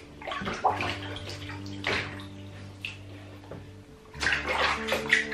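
Shallow bath water splashing and sloshing in a bathtub as a dachshund puppy stands and moves in it, held by a person's hands, in irregular small splashes.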